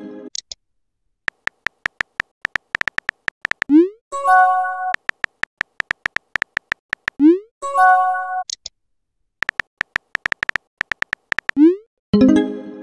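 Messaging-app sound effects: runs of quick keyboard-tap clicks as messages are typed. Three times, a run is followed by a short rising swoop and a chime as a message goes out or comes in. The last chime, near the end, is lower and fuller.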